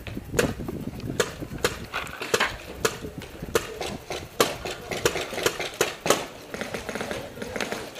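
Paintball markers firing around the field: a scattered run of sharp pops at uneven intervals, some louder and closer than others.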